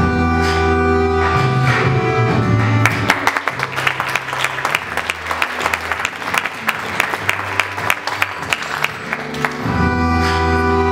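Performance music with bowed strings: sustained chords over a deep bass. About three seconds in they give way to a stretch of rapid sharp clicks over a quieter bass line, and the sustained chords return near the end.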